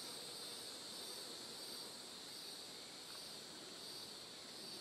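Faint, steady insect chorus: a high, hissing drone that wavers slowly.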